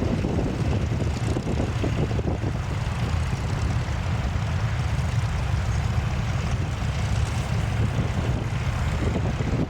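Tractor engine running steadily, with wind on the microphone.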